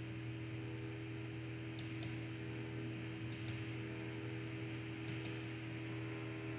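Computer mouse clicking: three quick pairs of clicks about a second and a half apart, over a steady low electrical hum.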